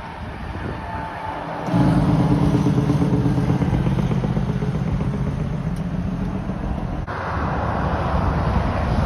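Semi truck's diesel engine running close by, a low pulsing rumble that starts abruptly about two seconds in. Near the end it gives way to a louder, broader rushing noise.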